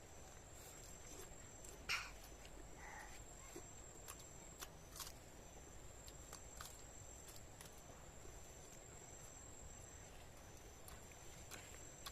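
Quiet eating sounds: scattered small clicks of chewing and spoon or plate, one a little louder about two seconds in. Underneath runs a steady high thin whine and a faint high chirp repeating at an even pace, typical of insects.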